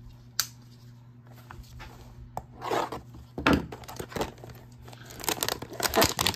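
Trading-card hanger box packaging being torn open and crinkled by hand: a sharp click about half a second in, then scattered rips, growing into busy tearing and crinkling near the end. A steady low hum sits underneath.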